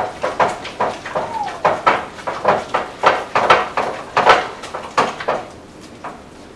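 A spatula stirring and scraping risotto in an enamelled pot, with quick knocks and scrapes about two or three times a second that stop about five seconds in. This is the melting Parmesan being worked into the rice to make it creamy.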